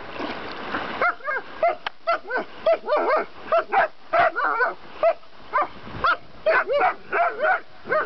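A German shepherd-type dog yipping and whining over and over, several short high cries a second. A rush of splashing water comes in the first second.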